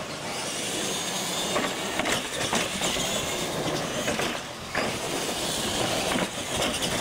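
Radio-controlled monster trucks racing on asphalt: motors and gears whining as they drive, with several knocks and clatters as the trucks run over the ramps.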